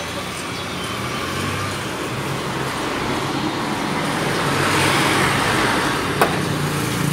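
Steady road traffic: vehicle engines and tyre noise, with one vehicle swelling past about five seconds in. A single sharp knock sounds just after six seconds.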